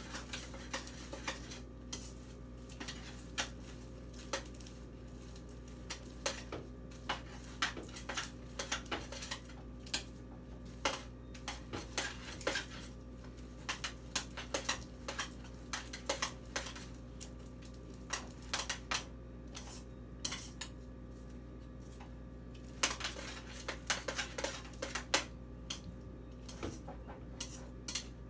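A utensil scraping and clinking against a large pan at irregular intervals as popcorn is stirred into hot Jell-O sugar syrup, over a steady low hum.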